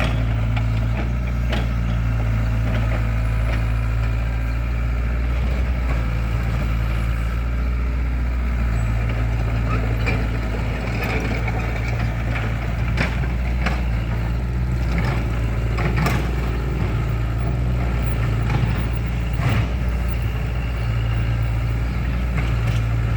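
Excavator's diesel engine running steadily at a low hum while digging, with several short sharp knocks scattered through.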